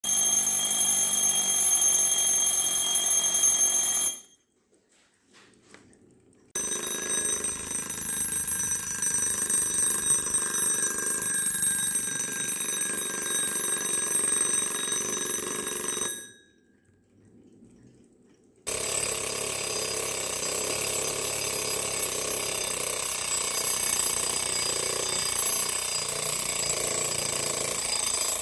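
Soviet wind-up alarm clocks ringing one after another: three separate rings, each with its own bell tone. The first lasts about four seconds, the second about ten, and the third starts about two-thirds of the way in and keeps going.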